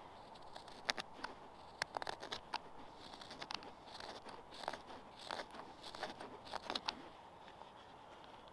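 A knife blade carving thin shavings from a small piece of wood: irregular short scrapes and clicks, one cut after another, stopping about seven seconds in.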